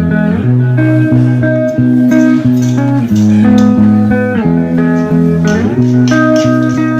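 Background music: a guitar-led instrumental track with a steady bass line.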